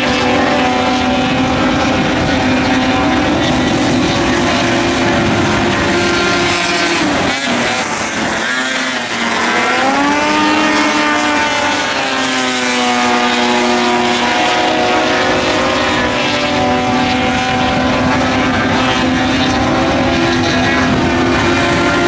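Several dirt track race car engines running hard as a heat race goes on, their tones overlapping. About eight seconds in, the sound dips briefly and the pitch falls, then it climbs again as the engines rev back up.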